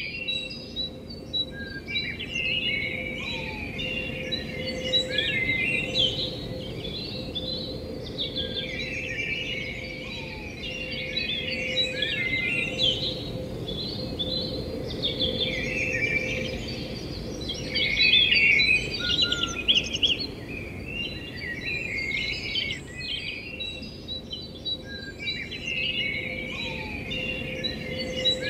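Many small birds chirping and twittering without a break, over a faint steady hum.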